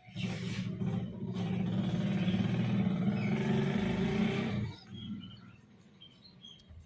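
A 2012 Toyota Corolla's starter motor cranking the engine for about four and a half seconds with a fast, even pulsing, then stopping abruptly; the engine does not catch.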